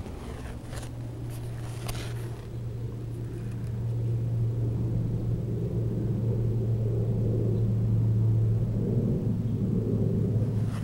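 A low, steady mechanical hum over a rumble, growing louder through the middle and easing near the end, with a couple of faint clicks in the first two seconds.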